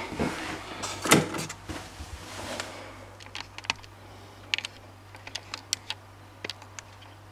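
Faint scattered clicks and light knocks of hands handling the wiring and plastic connectors on a fridge's evaporator coil, with one louder knock about a second in, over a low steady hum.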